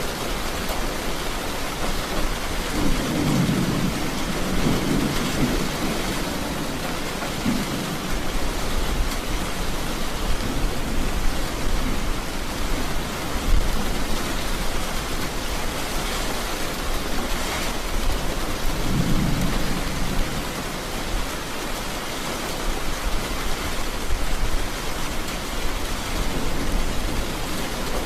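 Steady heavy rain with rolling thunder: a long low rumble a few seconds in and another shorter one past the middle.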